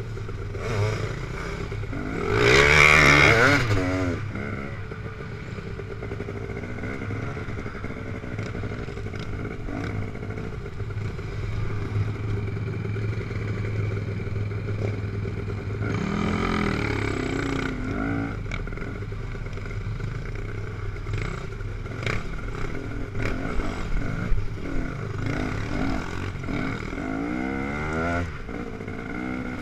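Dirt bike engines heard from a rider's helmet on rocky single track: steady running with loud bursts of revving about three seconds in and again around the middle. A run of sharp knocks and clatter comes a few seconds before the end.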